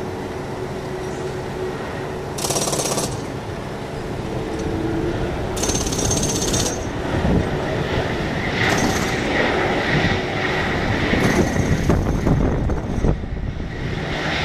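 Jet engines of an Airbus A220 rolling along the airfield: a rough, steady rumble of engine noise that grows louder through the second half, with a steady whine joining in after about eight seconds.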